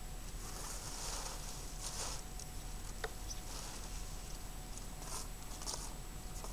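Dry leaves rustling and scraping in short bursts as they are raked and gathered on grass, with a sharp click about three seconds in.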